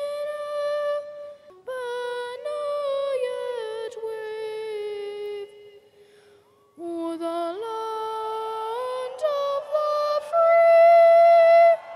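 Choir in high voices singing slow, held notes. There is a short pause about six seconds in, and the loudest long note comes near the end, then cuts off suddenly.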